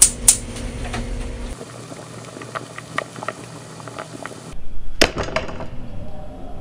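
Kitchen work sounds: two sharp clicks at the start, then a steady hiss with scattered light ticks. A few louder knocks come about five seconds in.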